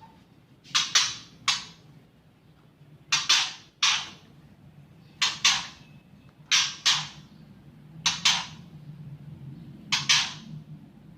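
Caged songbird giving sharp, harsh 'chik' calls, in clusters of two or three about every two seconds.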